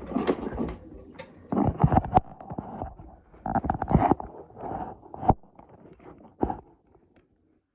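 Knocks, clatter and scraping of parts and tools being handled during a toilet fitting. The sounds come in several short bunches and die away about six and a half seconds in.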